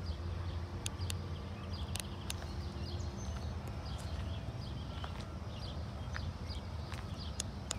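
Footsteps on asphalt, a few scattered sharp steps, over a steady low hum. Short high chirps repeat two to three times a second throughout.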